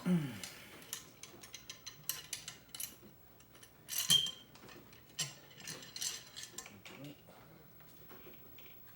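Light metallic clicks, knocks and scrapes of a cleaning rod being worked through a CVA Wolf muzzleloader's barrel, running cleaning patches down the bore, with a sharper metal clink about four seconds in.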